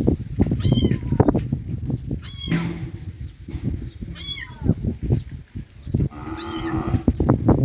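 Kittens meowing: four high meows, each falling in pitch, about every one and a half to two seconds. Longer, lower calls are held after the second meow and again near the end, over a steady run of low knocks and rumbles.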